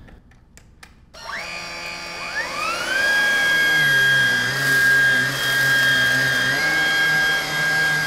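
A few light clicks, then about a second in the Lupe Pure cordless stick vacuum switches on at its highest setting. Its motor whine rises in pitch over a couple of seconds, then settles into a loud, steady, high whine. For a couple of seconds in the middle the lower hum drops in pitch while the cleaner head works the carpet, then comes back.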